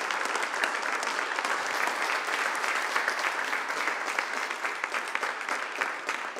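A small audience applauding, a dense patter of many hands clapping that starts to ease off near the end.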